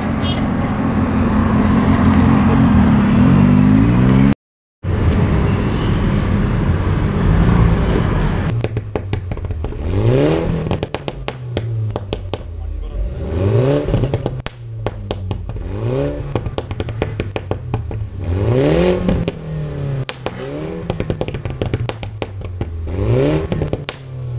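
2016 Mini Cooper S's turbocharged four-cylinder through an Armytrix valvetronic performance exhaust. It is first heard accelerating from inside a moving car, the note climbing. Then, parked, it is blipped into short free revs about every two seconds, with crackles and pops on the overrun after each rev.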